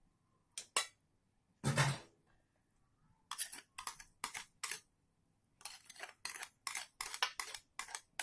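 Wooden spatula scraping and knocking against a wok while stirring soup: a run of short strokes, about two or three a second, from about three seconds in. Before that come a few clicks and one louder knock.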